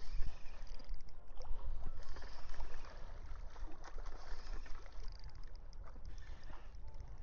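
Strong wind buffeting the microphone with a heavy rumble, gustier in the first few seconds, over small waves splashing and lapping at the shore.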